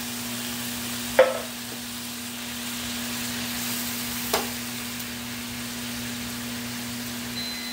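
Pineapple chunks sizzling in a hot pan, with a steady low hum underneath. A utensil knocks sharply against the pan twice, about a second in and again about four seconds in.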